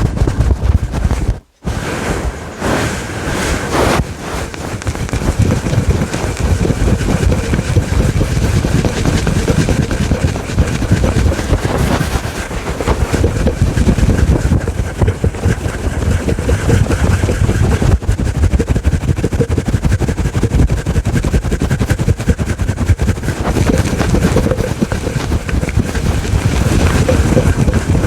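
Fast, aggressive scratching on a fluffy furry microphone cover, a loud, dense close-up rustle with a heavy low rumble. It stops for a moment about one and a half seconds in.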